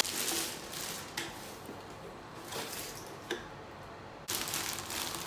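Clear plastic bag rustling and crinkling as a plastic soap dispenser is unwrapped, with a few light clicks from the plastic housing being handled.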